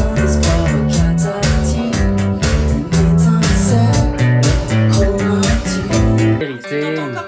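Live rock band playing an instrumental passage: drums, bass, electric guitar and keyboards. About six and a half seconds in the band stops, and a note slides down in pitch as it fades.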